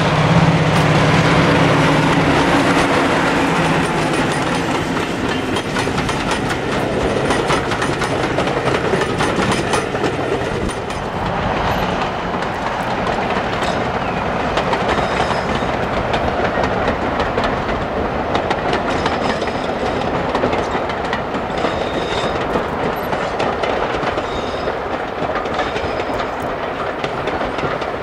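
A mainline diesel locomotive hauling coaches passes close by. Its engine note is strongest in the first few seconds, then gives way to a steady rumble of wheels clattering over the rail joints as the train runs on.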